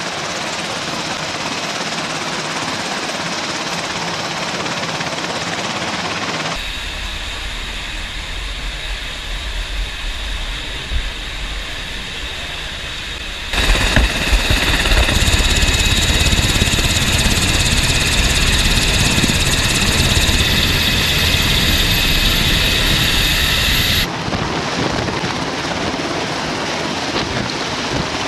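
MH-60 Sea Hawk helicopters running on a ship's flight deck: the rotors turn and the twin turboshaft engines whine steadily. The sound shifts abruptly three times as the shots change. The loudest stretch, in the middle, carries a high turbine whine over a fast low rotor beat.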